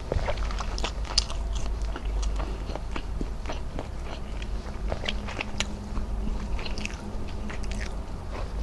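Close-miked chewing and wet mouth sounds while eating squid adobo with rice, with irregular small clicks and smacks, along with soft sounds of fingers picking up the sauced squid and rice.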